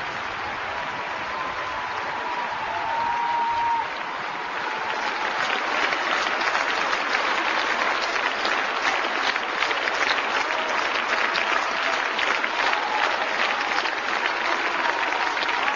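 Arena crowd applauding, the clapping growing louder and denser about five seconds in.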